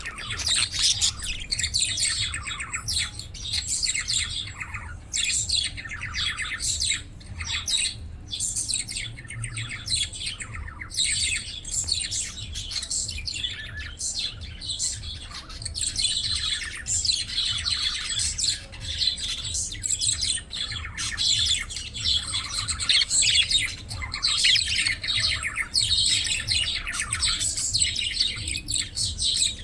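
Several budgerigars (budgies) chirping and chattering without a break, their calls overlapping, over a steady low hum.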